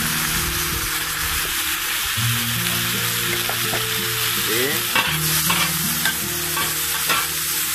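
Diced onion, chile and tomato sizzling steadily in bacon grease on a Blackstone flat-top griddle. From about the middle on, metal spatulas scrape and click several times against the steel griddle plate.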